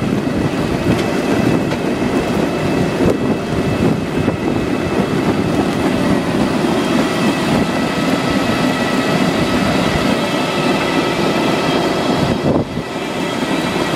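Koops tulip bulb harvester running while lifting bulbs: a steady mechanical rattle and clatter of its sieving webs and conveyors carrying bulbs and clay, with several thin steady whines over it. The noise dips briefly near the end.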